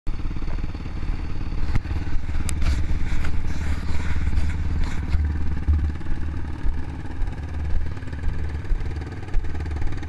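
Sport ATV engine idling steadily, with a few sharp clicks in the first half.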